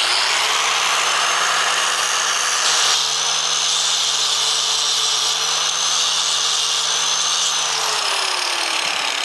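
Electric angle grinder with an abrasive wheel grinding the riveted steel planet-pin heads flush on a Powerglide planetary carrier: a steady motor whine over grinding noise. Near the end the whine falls in pitch as the wheel spins down.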